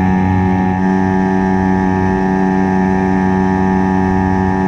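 HangKai 3.6 HP two-stroke gas outboard motor running steadily at constant throttle, pushing the kayak along.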